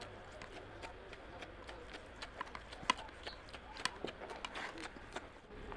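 Wet, sticky clicks and squelches of a bare hand mixing rice with oily mutton curry, irregular, with a few sharper clicks about three and four seconds in.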